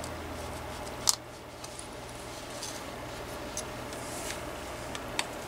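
Small screwdriver prying the receiver capsule off a cordless phone handset's circuit board: one sharp plastic snap about a second in as it pops loose, then a few light clicks of handling. A steady low hum runs underneath.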